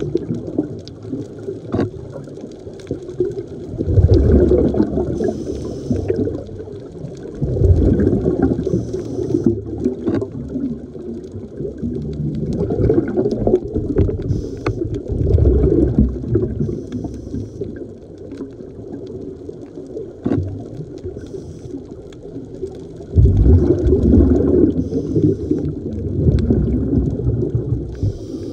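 Underwater sound of a scuba diver breathing through a regulator: a rush of exhaled bubbles every few seconds, a short hiss with each breath in, and a few sharp clicks.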